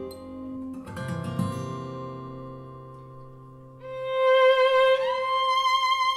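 Instrumental music played through a pair of NUMAN Octavox 702 MK II two-way bookshelf speakers: soft plucked guitar notes, then a violin melody comes in about four seconds in and grows louder.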